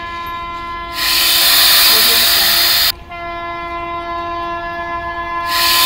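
Train horn sounding one long, steady note. Twice it is swamped by loud bursts of hiss about two seconds long; the second burst starts near the end.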